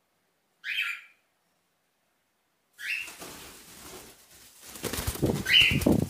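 A cockatiel gives a short, high chirp just under a second in. After a pause, another chirp comes, then the flutter and rustle of cockatiel wings flapping, loudest near the end, with one more chirp in the middle of it.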